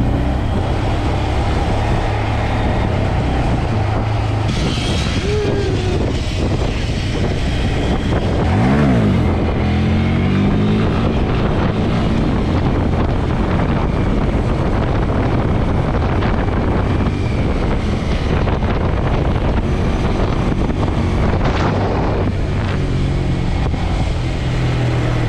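Small motorcycle engine running while riding, its note steady, with wind on the microphone. About nine seconds in, the engine pitch rises and falls quickly.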